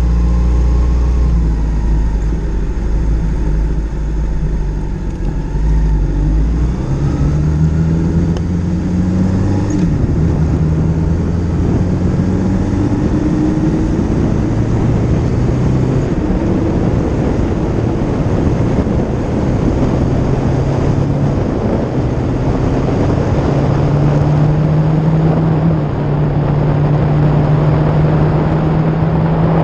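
Sport motorcycle engine running low for the first few seconds, then pulling away, its pitch climbing through a couple of gear changes before holding steady at cruising speed. Wind rush on the bike-mounted microphone builds as speed rises.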